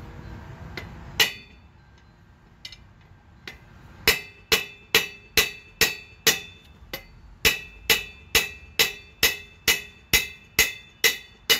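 Repeated metal-on-metal blows on a seized tiller mule drive through a long steel rod, each one ringing, to drive it off its shaft after heating and oiling. One sharp blow about a second in and a couple of light taps, then from about four seconds a steady run of about two blows a second.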